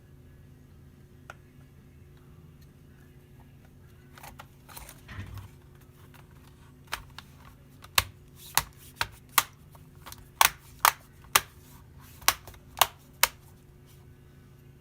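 Brief rustling of handling, then about ten sharp clicks in irregular succession, roughly half a second apart, over a low steady hum.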